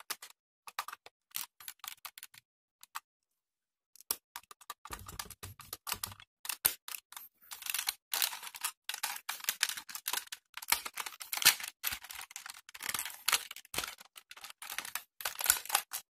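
Hard plastic toy parts of a DX Minityra being handled: scattered clicks at first, then from about four seconds a dense run of clicking and rattling as the jointed pieces are moved and turned.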